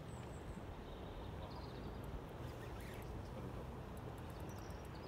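Steady wind noise on the microphone and river water, with a few faint high bird chirps.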